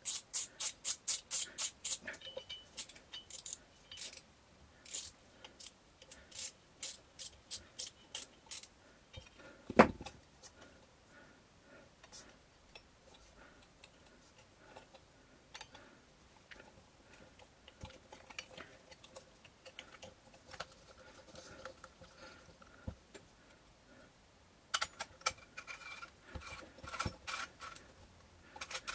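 Small metal clicks, taps and rattles from hand work on an enlarger's parts and wiring. It opens with a quick, even run of clicks about five a second, then goes to scattered clicks with one sharp knock about ten seconds in, and a busy cluster of clicks and rattles near the end.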